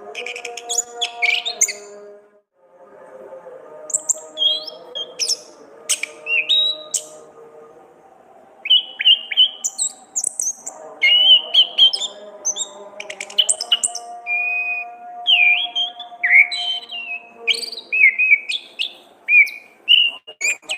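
Orange-headed thrush singing a varied string of loud whistled phrases and fast chattering trills, with a break about two seconds in. Soft steady background music runs underneath.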